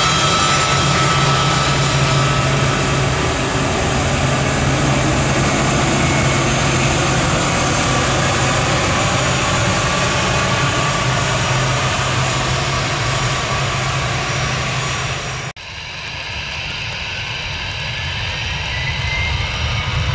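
Jet airliner engines running loud and steady, with a strong low hum under a broad rush. About fifteen seconds in the sound cuts off suddenly to a quieter jet engine sound, with a faint rising whine near the end.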